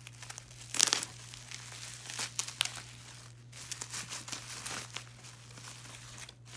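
Clear plastic bubble-wrap packaging being torn open and crinkled by hand: irregular crackling and rustling, loudest about a second in.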